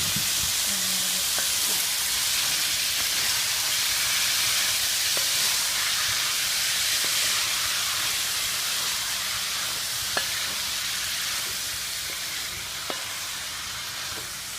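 Long beans and potatoes sizzling steadily in a pan of hot oil with tomatoes and spices, the sizzle easing a little toward the end. Two light clicks near the end, typical of a utensil touching the pan.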